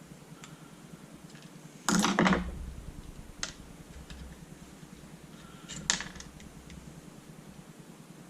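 Paintball marker parts being handled during disassembly: a short clatter of knocks about two seconds in, then single sharp clicks about three and a half seconds in and again near six seconds, with a few faint ticks between.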